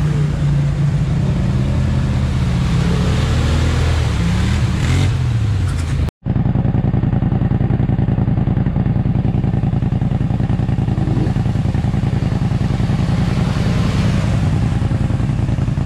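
ATV engines revving up and down as the quads churn through a mud hole, with water splashing. About six seconds in the sound drops out for an instant, then a steady, even engine note from a quad running through the water carries on.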